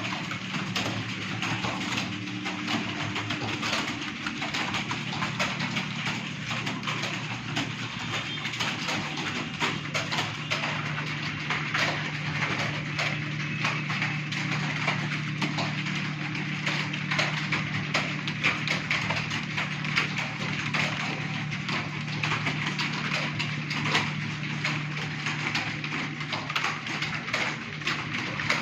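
Computer keyboard clicking in fast, continuous typing, several keystrokes a second, over a steady low hum.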